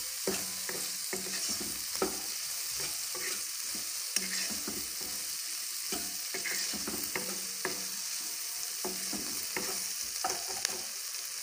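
Chicken pieces and diced green capsicum sizzling in oil in a wok while a spatula stirs and tosses them, with frequent irregular clicks and scrapes of the spatula against the pan over a steady frying hiss.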